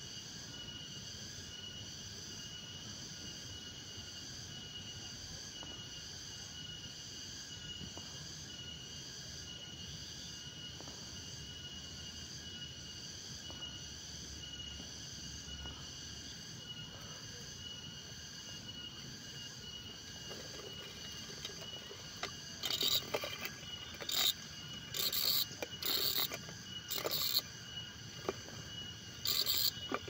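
Steady chorus of insects in the vegetation, several high-pitched tones held throughout. During the last eight seconds, about eight loud short noises break in over it.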